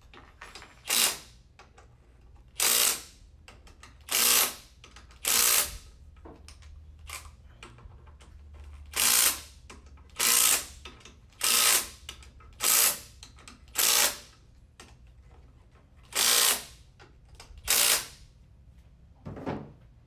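Cordless driver running bolts down one after another, about a dozen short rattling bursts with pauses between them as it moves from bolt to bolt: the transmission oil pump being bolted down in a cross pattern for an even pull-down.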